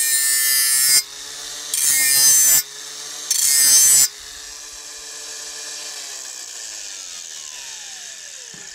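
A Makita cordless angle grinder with an abrasive disc is sharpening a steel lawn mower blade. It makes three short, loud grinding passes, each about a second long, in the first four seconds, and the motor runs freely between them. Near the end the motor winds down, its pitch falling.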